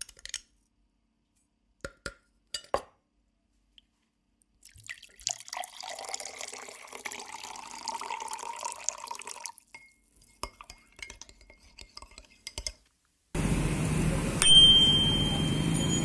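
Hot water poured from a metal kettle into a glass, running for about five seconds, followed by a few light clinks of glass. Near the end a bicycle handlebar bell rings once over steady outdoor noise.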